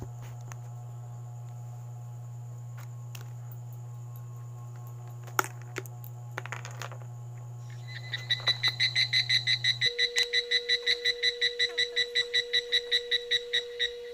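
Rapid electronic beeping, about five short even beeps a second, starting about eight seconds in, with a few handling clicks before it. A low steady hum stops partway through.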